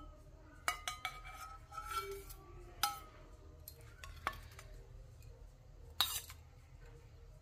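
Steel spoon and small steel bowls clinking: about six separate metallic clinks, each with a short ring, as egg whites are spooned and tipped away from the yolks.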